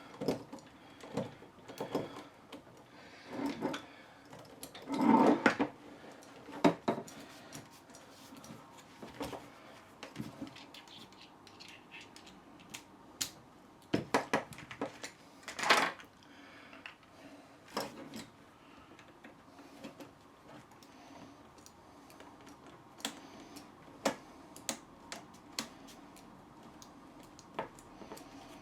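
Small screwdriver and screws clicking and knocking against the plastic housing of a telescopic suitcase handle as the screws are taken out and the parts handled. The clicks come at irregular intervals, with a louder clatter about five seconds in and a couple of sharper knocks around the middle.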